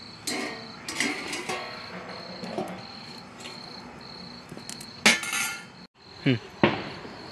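Crickets chirping steadily, with clinks and clatter of steel cookware as a steel plate is put over the curry pot as a lid; the loudest clang comes about five seconds in.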